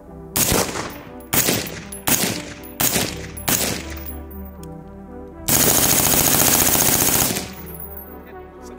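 A suppressed PSA Freedom AR-15 firing five single shots about a second apart, then a continuous burst of rapid fire lasting just under two seconds, which is the loudest part. The rifle is being fired while its stoppages are checked.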